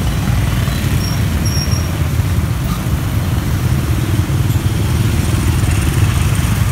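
Motorbike street traffic: scooter engines running with a steady low rumble and road noise.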